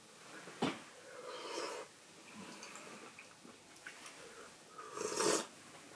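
A person eating hot food with mouth and breathing noises: a sharp click under a second in, then breathy slurping or blowing, loudest about five seconds in.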